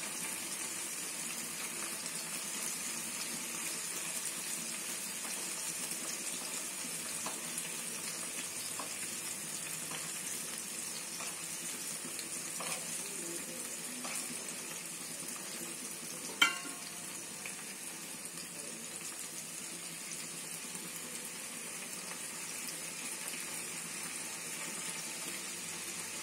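Tilapia fish fingers shallow-frying in hot oil on a flat griddle pan, a steady sizzle. One sharp clink sounds about sixteen seconds in.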